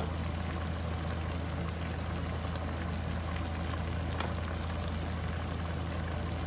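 Steady hiss of mutton cooking in a pot over a gas burner, with a constant low hum underneath and a faint click about four seconds in.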